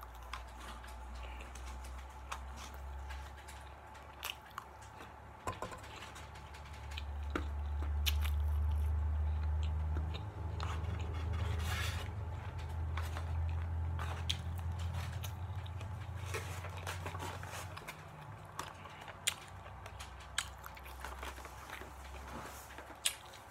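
Close-up eating sounds of Chinese takeout: chewing and mouth noises with scattered clicks and scrapes of a plastic fork in a styrofoam container. A low hum swells from about seven seconds in and fades again at about eighteen seconds.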